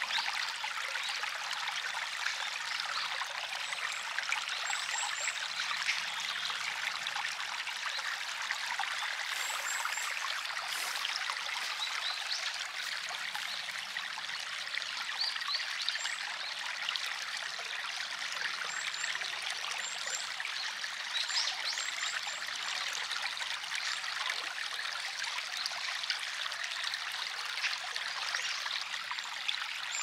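Stream water flowing and trickling steadily.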